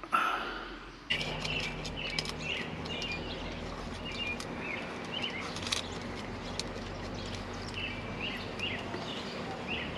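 Small birds chirping again and again over a steady outdoor background, with a few faint clicks mixed in; the chirping starts abruptly about a second in. Before that there is a brief loud sound that fades out over about a second.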